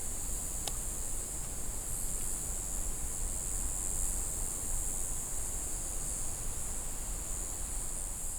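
Night-time outdoor ambience: strong wind buffeting the microphone as a low, uneven rumble, under a steady high hiss, with one faint click just under a second in.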